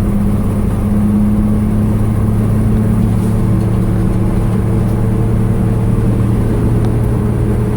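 Chevrolet C10 pickup heard from inside its closed cab while driving: a steady drone of engine and road noise at constant speed.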